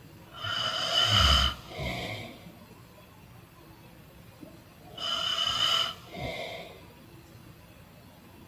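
A sleeping person snoring: two snores about four and a half seconds apart, each a long in-breath followed by a shorter out-breath. The first in-breath ends in a loud, deep rattle.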